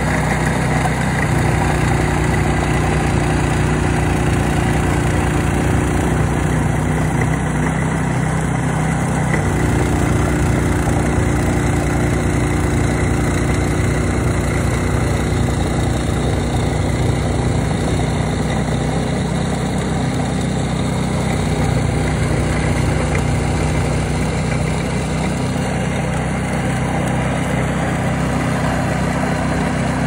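Walk-behind snowblower's engine running steadily as it clears snow.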